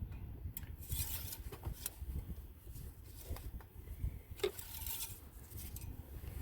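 Handling noises under the hood: a few sharp clicks and short scraping rustles, the clearest about a second in and again around four and a half seconds in, over a low rumble of wind on the microphone.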